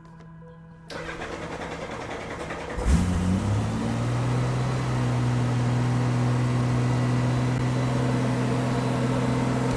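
Honda GL1500 Gold Wing's flat-six engine cranking on the starter for about two seconds, then catching and settling into a steady idle. The battery is running low, but the engine starts on its first try.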